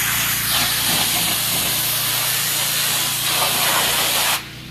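Pressure washer spraying: a loud, steady hiss of the water jet over a steady low hum, with the spray cutting off suddenly near the end.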